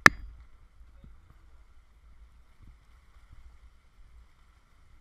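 Faint wind rumble and water rush aboard a small sailboat under way, with one sharp click right at the start.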